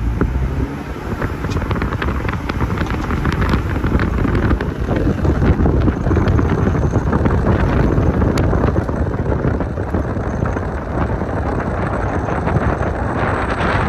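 Car driving along a street: steady road and engine noise with wind buffeting the microphone, and scattered light clicks over it.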